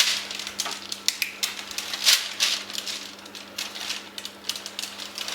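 A utensil scraping and clicking against a bowl or tray while a thick, sticky mixture is pushed around and spread. It is an irregular run of short scrapes and taps, with a few louder clacks.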